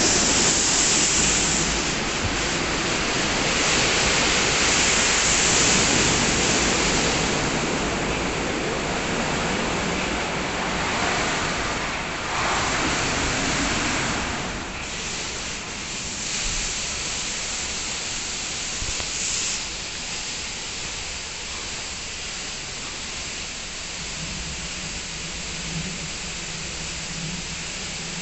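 WashTec SoftCare 2 Pro rollover car wash spraying water over a car as its gantry travels, a steady rushing hiss. It is louder for the first half and quieter from about halfway, and a low machine hum comes in near the end.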